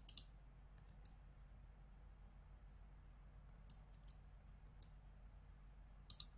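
Scattered sharp clicks from a computer mouse and keyboard during window switching: a quick pair at the start, single clicks about a second in and near the middle, and another pair near the end, over a faint steady low hum.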